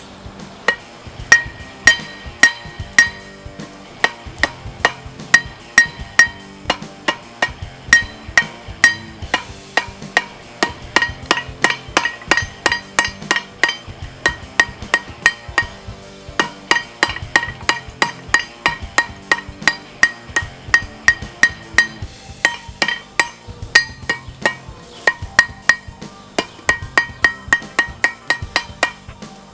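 Small hammer tapping a chisel or punch to incise designs into the steel of a knife blade: quick, slightly irregular metallic taps about two to three a second, each with a short ring, over background music.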